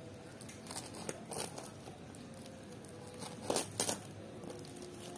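Hands handling a long cardboard parcel wrapped in plastic packing tape: scattered short crinkles and rustles, with two louder crinkles in quick succession about three and a half seconds in.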